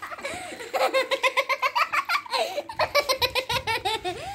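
A young girl laughing hard: a long run of quick giggles that starts just under a second in.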